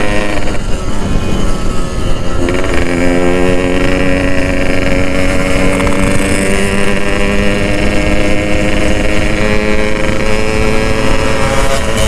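Two-stroke Yamaha motorcycle engine running under way, heard from on the bike with wind rumble on the microphone; its note steps up about two and a half seconds in, then holds steady.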